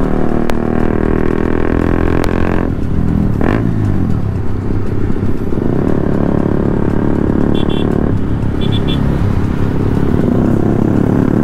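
Motorcycle engine and exhaust heard from the rider's seat while riding. The throttle eases off about two and a half seconds in, the pitch dips and rises, and it pulls steadily again. Two short clusters of high beeps come about a second apart near the middle.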